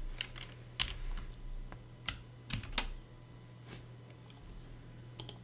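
Computer keyboard being typed on: a handful of separate keystrokes at an uneven, unhurried pace, over a faint steady low hum.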